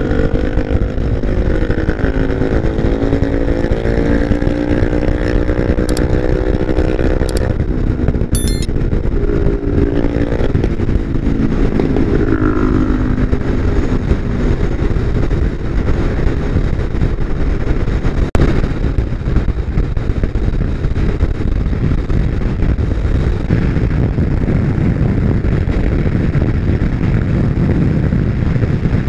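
WMoto Longjia XDV 250i held at full throttle on a top-speed run, its engine running steadily under heavy wind rush on the microphone as speed climbs past 140 km/h. Background music plays over roughly the first third, then fades, leaving engine and wind.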